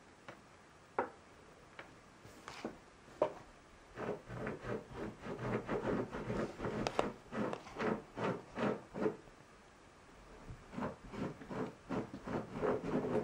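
Cardboard box being handled by hands: a few light taps at first, then quick runs of fingers rubbing and sliding over the box, with a short lull about two thirds of the way through.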